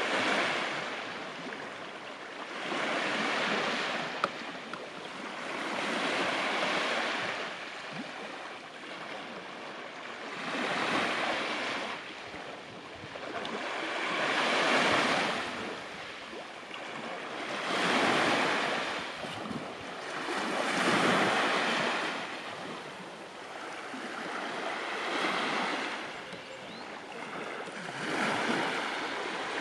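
Sea waves washing onto the beach, each one swelling up and fading away again, a new wave about every three to four seconds.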